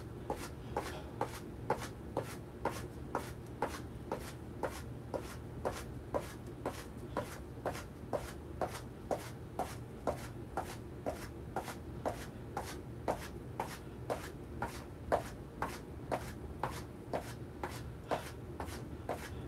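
Feet marching on the spot on a floor: an even series of light footfalls, about two a second.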